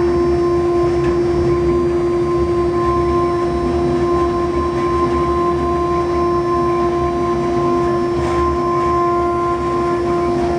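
Acctek AKS1212 stone CNC router's spindle engraving a two-colour engraving board: a steady, unchanging whine from the spindle with the noise of the bit cutting through the blue top layer into the white core.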